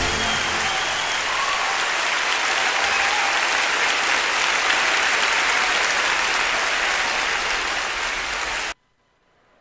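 Congregation applauding at the end of a worship song: steady clapping that cuts off abruptly near the end.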